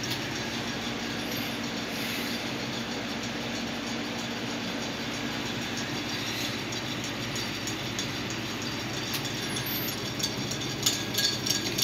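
Hampton Bay ceiling fan running steadily on high speed, with vibration and a little bearing noise. A few light clicks come near the end.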